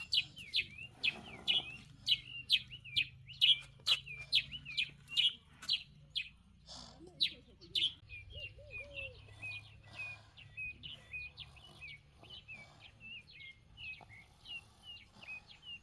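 A bird chirping over and over, about two short calls a second, louder through the first half and softer after.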